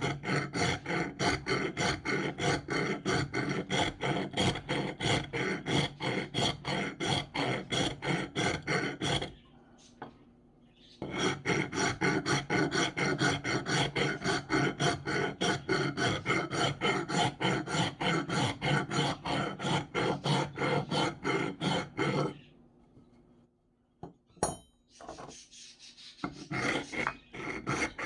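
Rapid back-and-forth rasping strokes of a hand tool worked against a hard surface, about four to five strokes a second, in long spells. The strokes break off twice, the second time with a single sharp click before they start again.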